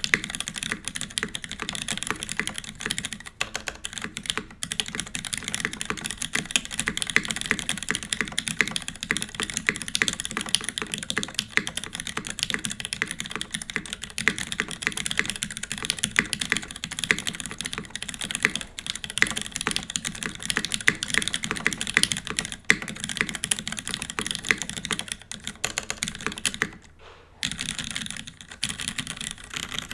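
Steady, fast typing on a UTC 360c mechanical keyboard: retooled Cherry MX Black linear switches lubed with 205g0 and fitted with TX films, under GMK keycaps, on a top-mounted aluminium plate. The key strokes run on without a break except for a short pause near the end.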